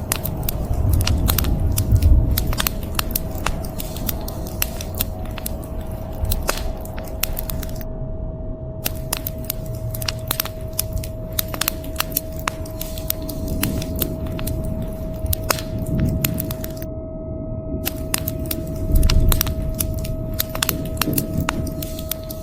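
Wood fire in a fireplace crackling, with frequent sharp pops over a low rumbling bed that swells about two seconds in and again near the end. A faint steady hum sounds throughout.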